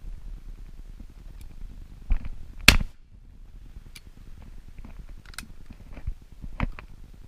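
Handling noise as the camera moves against a camouflage-net hide: scattered knocks, clicks and rustles, with a sharp, loud knock about two and a half seconds in and lighter clicks later.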